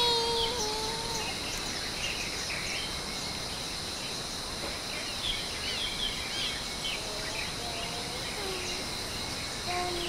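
Outdoor forest ambience: scattered short bird chirps over a steady high hum and background hiss. A child's singing voice carries into the first second, and faint voice-like notes return near the end.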